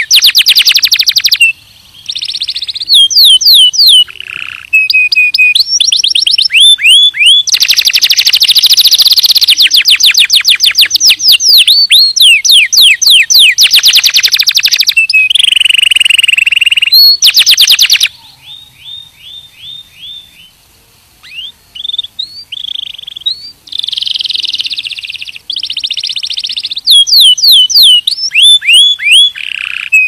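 White domestic canary singing: a long, loud song of rapid trills and fast runs of rising and falling whistled notes, with a quieter, sparser stretch about two-thirds of the way through.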